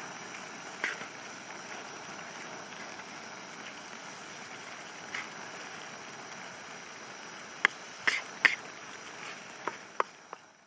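Marinated kebab meat sizzling in a pan as a steady hiss. A few sharp clicks come over it, most of them close together near the end.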